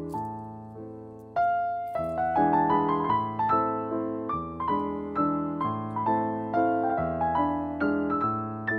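Background piano music: a slow melody of single piano notes, each struck and fading, over low chords.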